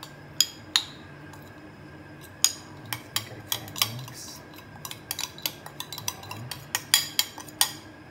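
Kitchen utensils and a container clinking and tapping against a metal cooking pan: scattered sharp clicks, coming thicker in the second half.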